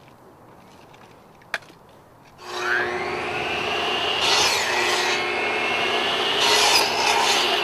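Electric saw cutting wood. A click comes first, then about two and a half seconds in the motor whines up to speed. The blade rasps through the wood in two harsher stretches, and the motor winds down with a falling whine at the end.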